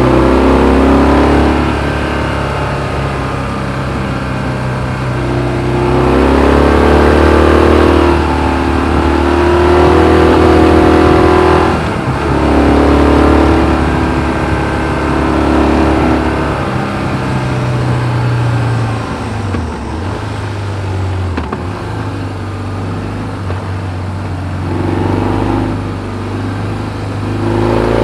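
BMW R1200GS 1170 cc flat-twin engine through its stock exhaust, heard from the rider's seat, accelerating hard and easing off again several times, its pitch climbing and dropping with each pull.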